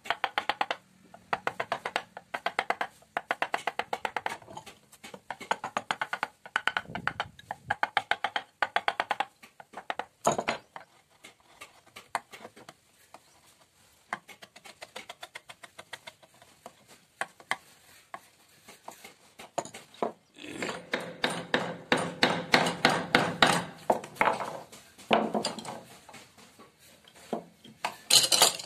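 Carving chisel being tapped rapidly with a mallet into a hardwood door panel: quick wooden knocks in bursts of a few seconds with short pauses, softer through the middle and louder and denser near the end.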